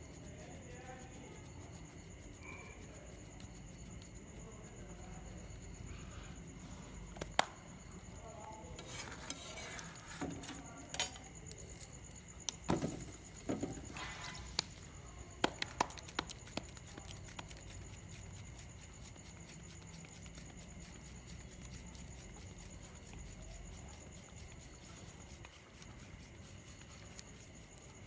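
Faint handling noise of making maize-flour rotis, with a cluster of sharp clicks and knocks in the middle, over a steady faint high whine.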